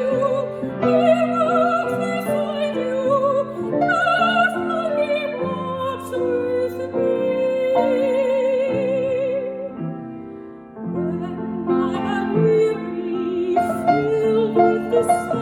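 A classical-style vocal solo sung with heavy vibrato over piano accompaniment. The music thins briefly about ten seconds in, then resumes.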